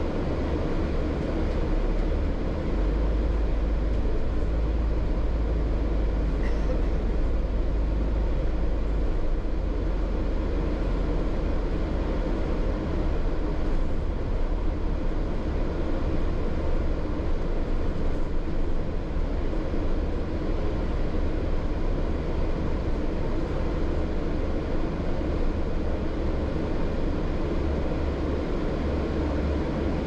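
Double-decker bus running, heard from inside on the upper deck: a steady deep engine rumble with road noise. The rumble grows deeper and stronger for several seconds near the start, then evens out.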